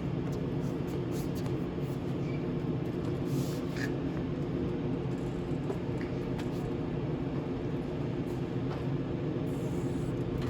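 A steady mechanical hum made of several low held tones, which cuts off suddenly at the end.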